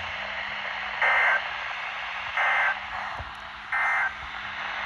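Three short bursts of Emergency Alert System digital data tones, about a second apart, over radio hiss and a low hum. Their shortness marks them as the SAME end-of-message (NNNN) bursts that close an EAS alert.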